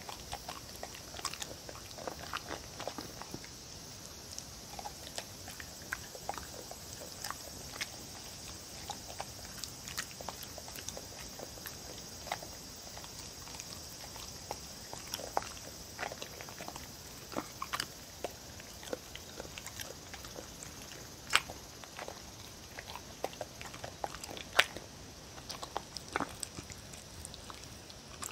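A dog eating soft cubes of tofu and potato off a wooden board: irregular chewing and small mouth clicks, with two louder clicks in the last third.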